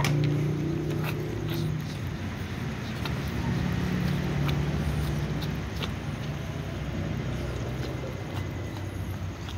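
A steady low rumble, with a few scattered small clicks as several cats chew pieces of food.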